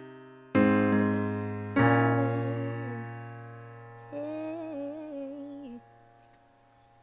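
Slow ballad intro on electric piano: two chords struck about a second apart, each ringing out and fading, then a short wordless vocal phrase over the held chord before the music drops away near the end.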